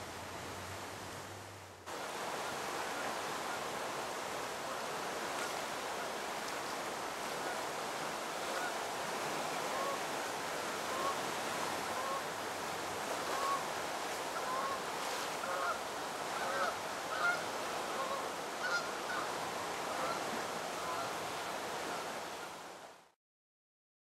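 The Chattahoochee River rushing fast and turbulent below Buford Dam, its flow swollen by a dam water release. Through the middle and later part, short repeated bird calls sound over the water, the strongest near the end. It steps up in level about two seconds in and cuts off about a second before the end.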